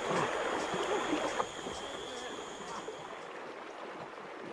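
Water sloshing and splashing, irregular and unpitched, with a faint steady high-pitched tone above it.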